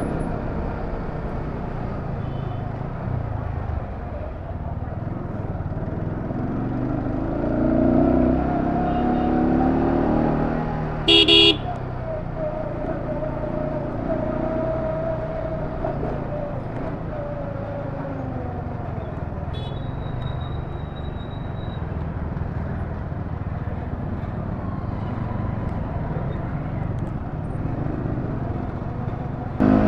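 Sport motorcycle running at low speed in slow town traffic, its engine pitch rising and falling as the rider works the throttle. A vehicle horn gives a short double beep about eleven seconds in.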